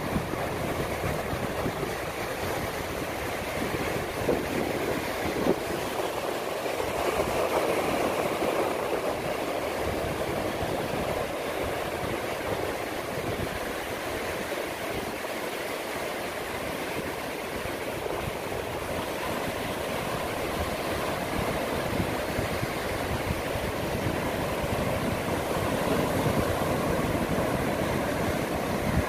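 Ocean surf breaking and washing up a sandy beach: a steady rush of waves that swells a little about eight seconds in and again near the end.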